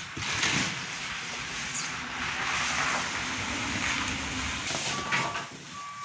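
Thin plastic wrapping sheet over a new washing machine being pulled and bunched up, a continuous crinkling rustle.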